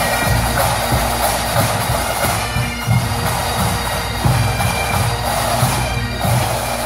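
Massed Highland pipe bands playing: many bagpipes sounding together over steady drones, with bass and snare drums beating a regular marching rhythm.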